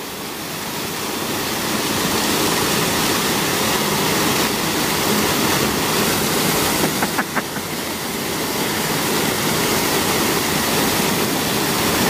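Steady rushing of a small waterfall: the outflow of a dam pouring over a rock ledge and crashing into a shallow pool below.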